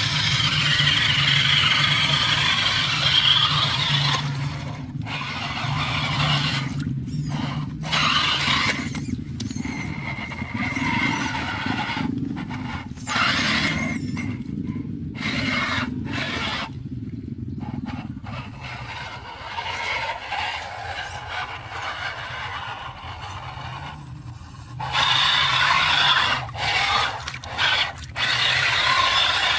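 Electric motor and gears of an RC tubular-chassis crawler whining as it drives through a muddy water-filled rut, its wheels churning and splashing. The sound cuts off abruptly and resumes several times.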